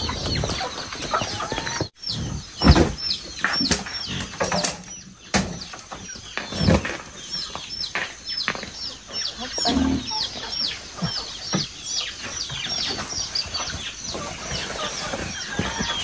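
Chickens crammed in a woven bamboo cage clucking and squawking, with a steady run of short high calls and scattered louder squawks and scuffles as the birds are handled.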